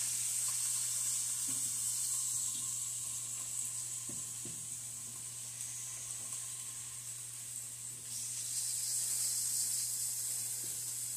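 Thin strips of raw beef sizzling in olive oil in a hot frying pan as they are laid in one at a time with tongs. There is a steady hiss that grows a little louder near the end, with a few faint clicks of the tongs.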